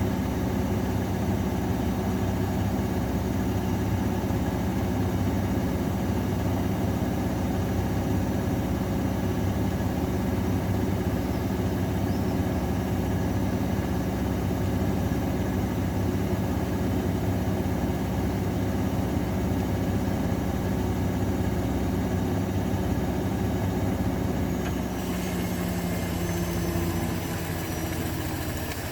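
AEG Öko_Lavamat 693 washing machine running with a steady motor and drum hum. About 25 seconds in, the pitch starts to fall and the sound eases off as the machine slows down.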